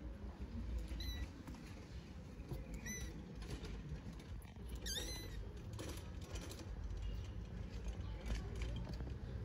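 Young kitten giving three short, high-pitched squeaky mews about two seconds apart, with faint tapping sounds between them.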